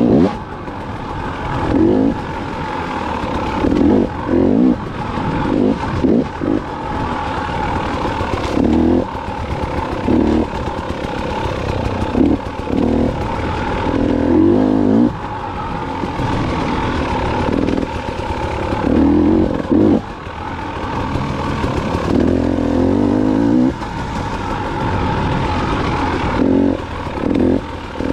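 2019 KTM 300 XC-W's two-stroke single-cylinder engine running under riding load. The throttle is opened in repeated surges every couple of seconds, with lower running between them.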